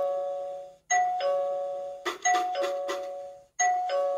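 Doorbell chime ringing ding-dong, a higher note stepping down to a lower one, repeated about every second and a half: a recorded doorbell sound played for puppy socialization. A few short clicks come about two seconds in.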